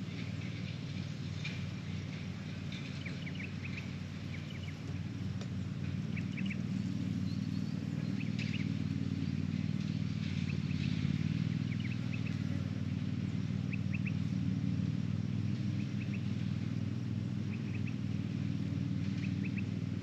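A steady low engine drone from an unseen motor, with short quick chirping calls of small birds every second or two.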